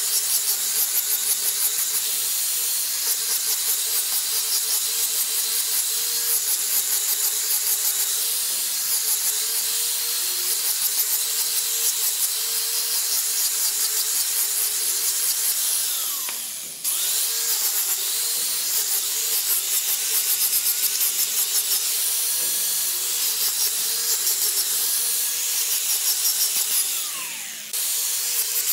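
Electric angle grinder with a sanding disc running and sanding a curved wooden handrail piece: a steady motor whine under a gritty abrasive hiss. Twice, about halfway and near the end, its pitch falls and the sound sags before it jumps straight back up to speed.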